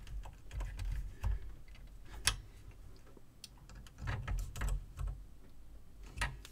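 Small scattered clicks and handling bumps from hands working on the metal chassis and mechanism of a TEAC A-103 cassette deck while screws are being checked and tightened, with one sharper click about two seconds in.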